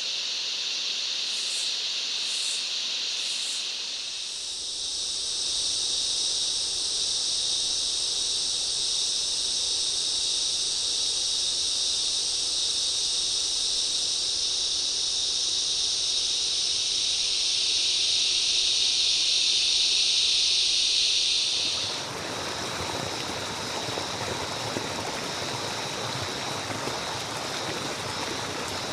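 Rainforest ambience: a steady, high-pitched insect drone that swells a little, then about 22 seconds in it gives way to the rushing of a running stream.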